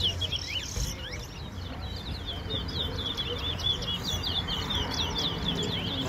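Caged twa-twa (chestnut-bellied seed finch) singing a fast, continuous run of high twittering chirps and short slurred notes, with no break.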